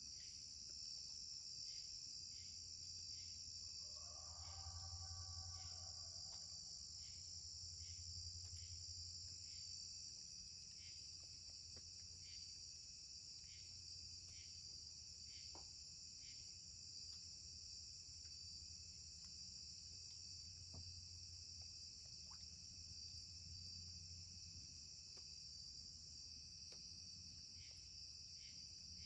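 Faint insect chorus: a steady high-pitched drone with a separate chirp repeating roughly once a second. A brief lower, stepped call sounds about four seconds in.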